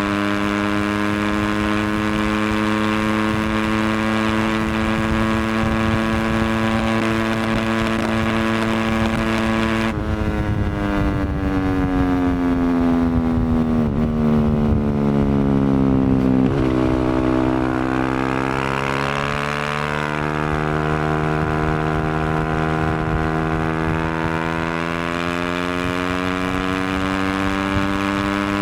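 Yamaha WR250F's single-cylinder four-stroke engine running through an FMF exhaust, holding a steady pitch. About ten seconds in the revs sag for several seconds, then climb back and settle at their earlier steady level.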